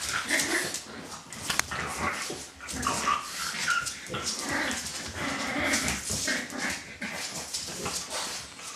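An adult French Bulldog and a puppy play-fighting, making a continuous, irregular run of snuffling and grunting dog noises with a few short high squeaks about three seconds in.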